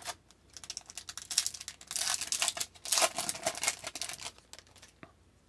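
Foil wrapper of an Upper Deck hockey card pack being crinkled and torn open, in a run of crackling rustles that stops about a second before the end.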